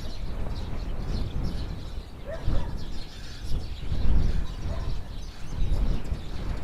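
Small birds chirping in scattered short calls over a low, gusty rumble that swells twice, about two and a half and four seconds in.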